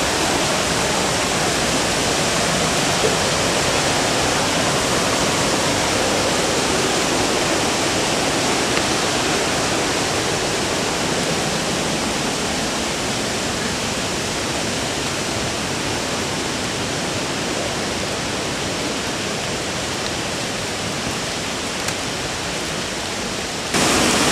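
Steady rush of a fast-flowing stream, an even roar of water that fades a little over time and then turns abruptly louder near the end.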